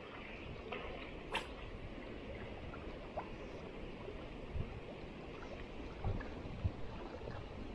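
Steady low rush of moving river water, with one sharp click a little over a second in and a few soft low knocks in the second half.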